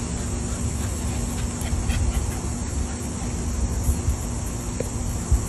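Steady high insect chirring over a low background rumble and a faint steady hum.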